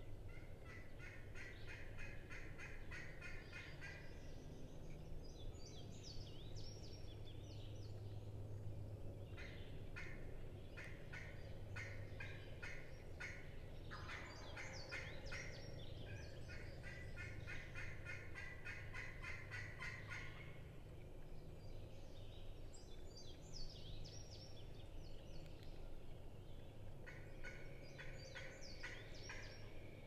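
Turkey calling: runs of rapid repeated notes lasting several seconds each, near the start, through the middle and again near the end. Higher songbird chirps sound over them, with a steady low hum underneath.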